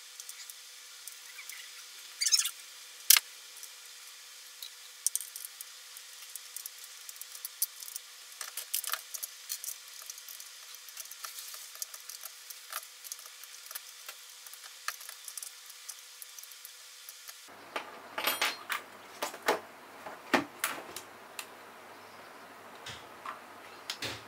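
Scattered small clicks and taps of a screwdriver and hard plastic parts on a COM2003 steering column switch module as it is unscrewed and taken apart, with one sharp click about three seconds in and a busier run of clacks from the plastic switch stalk late on.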